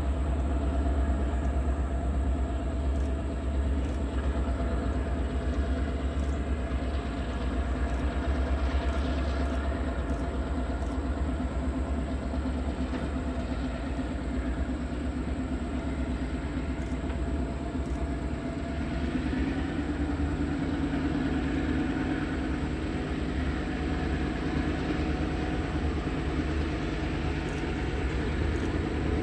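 EMD diesel-electric locomotives of a passenger excursion train running with a steady, deep engine drone. The lowest rumble eases about two-thirds of the way through while the mid-range engine sound grows.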